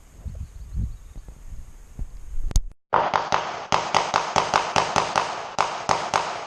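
Handgun rapid fire: after a single shot, a fast string of more than a dozen pistol shots at about four a second, each a sharp crack with a short ringing tail, stopping near the end. Low thumps of wind or handling come before the shooting.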